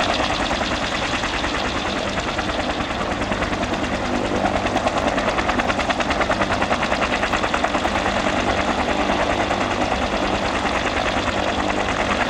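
Fuji-Bell 204B-2 helicopter running on the ground with its main rotor turning: a steady turbine engine noise under a fast, even beat from the two-blade main rotor.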